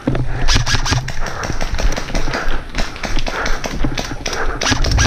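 An airsoft player on the move with the camera on their body: quick tapping and knocking of footsteps and jostling gear, over a low rumble of handling noise, with hard breathing puffing about twice a second.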